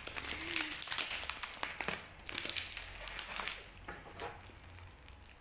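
Plastic and paper parcel wrapping crinkling and rustling as it is pulled and worked open by hand. The rustling comes in irregular bursts and thins out near the end.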